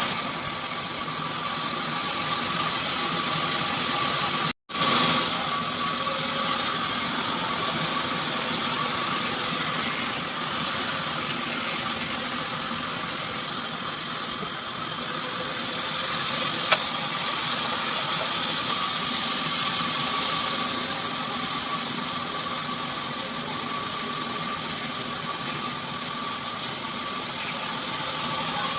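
Band sawmill running steadily, a continuous mechanical hum and rush with a thin steady whine. The sound cuts out for a moment about four and a half seconds in, and there is a single sharp click later on.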